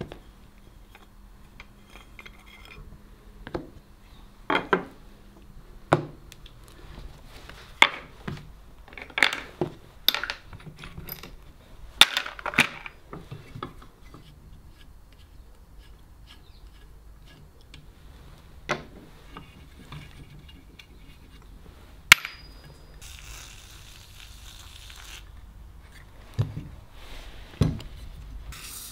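Cast-iron and steel parts of a Stanley Bedrock No. 608 jointer plane being handled and set down on a wooden workbench while it is taken apart: a string of metallic clinks and knocks, thickest in the first half, then a sharp clink with a brief ring past the middle and two duller thuds near the end.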